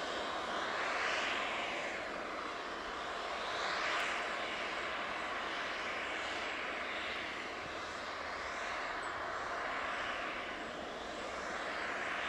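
Steady roar of a distant aircraft engine, swelling and easing every few seconds.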